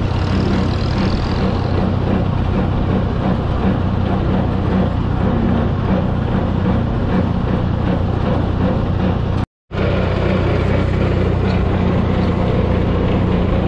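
A 1970 Minneapolis-Moline propane tractor engine running steadily under way on the road, heard from on board the tractor. The sound cuts out for an instant about nine and a half seconds in.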